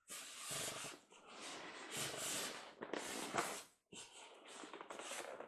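Cardboard and paper packaging rustling and scraping as it is handled. It comes in two stretches, with a short break about four seconds in.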